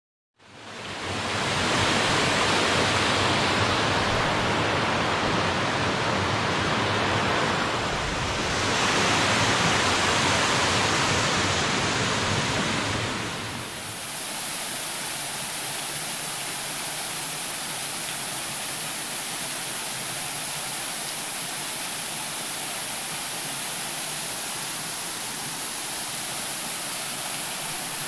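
Waterfall water falling and splashing, a loud even rushing noise. About 13 seconds in it drops to a quieter, steady wash of falling water with a thin high hiss over it, the sound of two small falls pouring into a pool.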